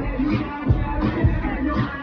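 Music with a steady bass beat.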